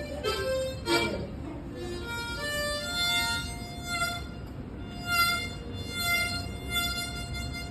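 Solo harmonica playing a melody without accompaniment: a few quick notes at first, then longer held notes.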